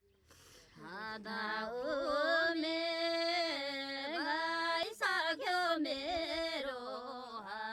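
A single voice singing a slow melody, with long held notes that glide and waver between pitches.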